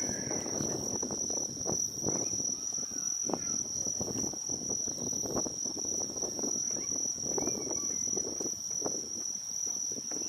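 Insects, likely crickets, trilling steadily on one high note, over the murmur of many people talking.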